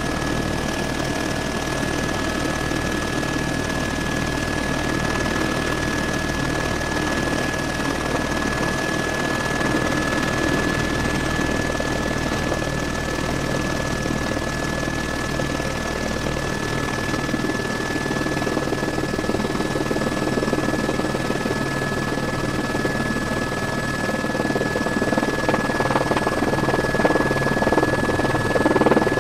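Helicopter cabin noise in flight: steady engine and rotor drone with a steady high whine over it, getting a little louder near the end.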